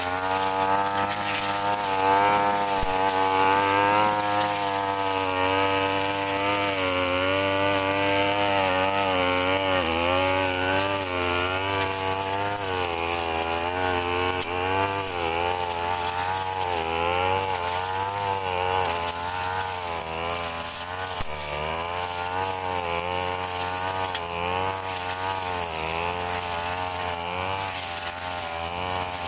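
Two-stroke brush cutter engine running continuously while cutting grass, its pitch wavering up and down as the load on the blade changes.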